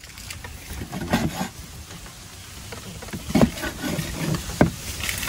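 Cleaver slicing through boiled pork udder and knocking down onto a wooden chopping board, several separate knocks a second or more apart.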